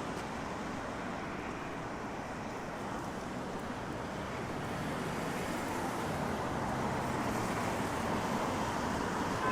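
Road traffic on a rain-wet street: a steady hiss of tyres with a low engine hum, growing gradually louder through the second half as a vehicle draws near.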